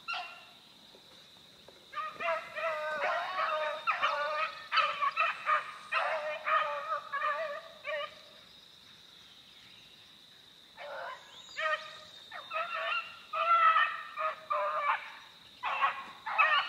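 Pack of beagles baying as they run a rabbit track, in two long spells of repeated cries, the second starting about eleven seconds in.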